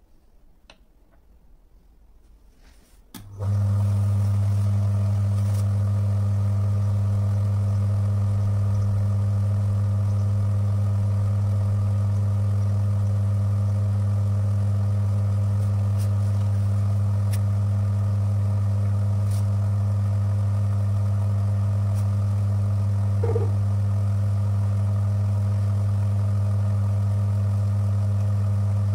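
Electric motor of a bench friction tester switching on about three seconds in, then running with a steady low hum as it turns a brass roller against a weight-loaded test bearing in an oil additive. One brief higher-pitched sound rises over the hum near the end.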